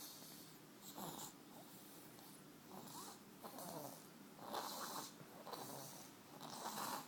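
Snoring in slow, regular breaths, one about every two seconds, the later ones louder.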